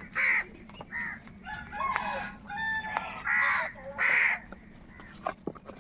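Crows cawing, about five loud, harsh caws from more than one bird, with fainter calls from other birds in between.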